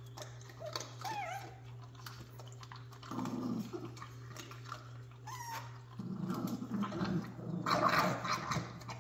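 Jack Russell Terrier puppies crowding at a food bowl, giving a few short high squeaky whines and low grumbling growls about three seconds in and again from about six seconds. There is a louder scuffle near the end. A steady low hum sits underneath.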